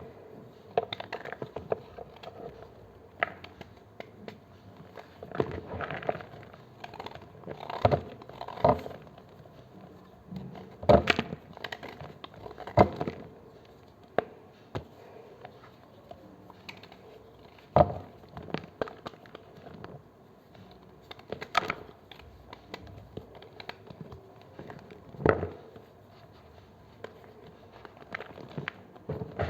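A knife cutting and crushing blocks of gym chalk: irregular dry crunches and crumbling crackles, a few sharp loud ones among softer scraping.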